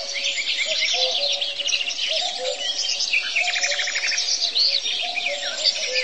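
A dense chorus of many birds chirping and calling together, with a quick trill a little past the middle, over soft background music with a gentle repeating melody.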